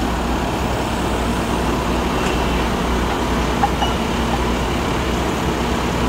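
Bobcat skid steer's diesel engine running steadily at idle with the boom raised, with a couple of faint light clicks a little past the middle.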